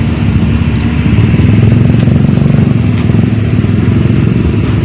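A small engine running steadily with a low, fast-pulsing hum.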